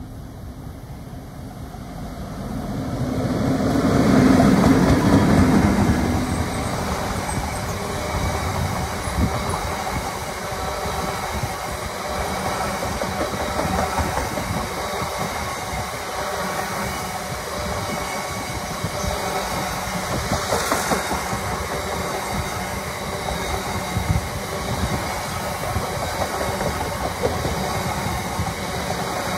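A train passing close by on the track, swelling to its loudest a few seconds in, then a steady rumble of wheels on rails with rhythmic clickety-clack as the carriages run past.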